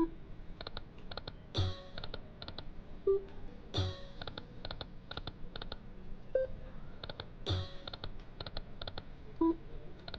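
Lightning Link Sahara Gold video slot machine spinning: a constant run of quick electronic clicks as the reels spin and stop, with a louder chime and low thud three times and short beeps in between.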